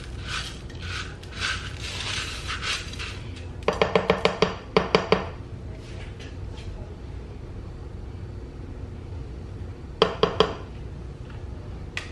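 A spatula scraping and pushing cheese cubes around inside a stoneware slow-cooker crock. Then it is tapped rapidly against the crock's rim, about a dozen sharp ringing knocks in a second and a half, with three more knocks about ten seconds in.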